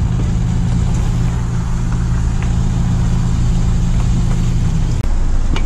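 Petrol station fuel dispenser pumping petrol into a motorcycle's fuel tank: a steady low hum that cuts off abruptly about five seconds in as the pump stops.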